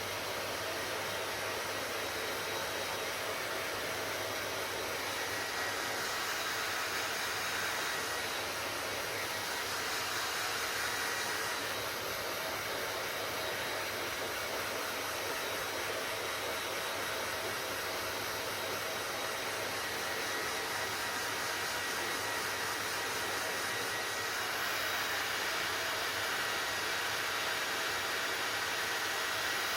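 Hair dryer running steadily: a constant rush of blown air over a faint low hum, its tone brightening slightly now and then.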